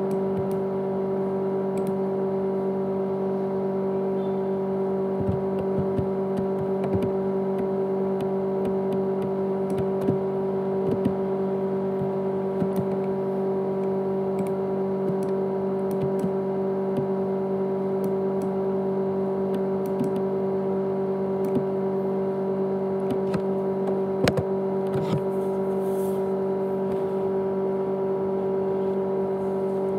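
A 500 GB USB hard drive running loudly with a steady, even hum, with faint scattered clicks and one sharper click a little past the three-quarter mark.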